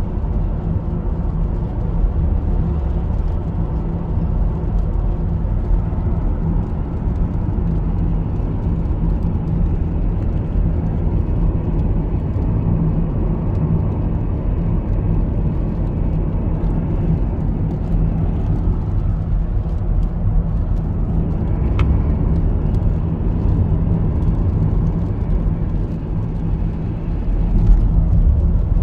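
Steady low rumble of road and engine noise inside a moving car's cabin, getting slightly louder near the end.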